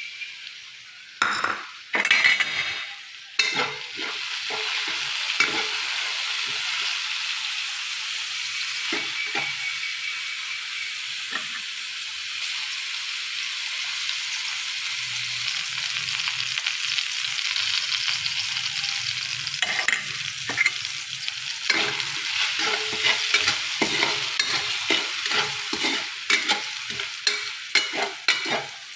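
Minced garlic and shallots sizzling in hot oil in a wok. About a second in there is a sudden loud burst of sizzle as liquid from a bowl hits the hot pan, then a steady sizzle. From about twenty seconds in, a metal spatula scrapes and taps repeatedly against the wok as the mixture is stirred.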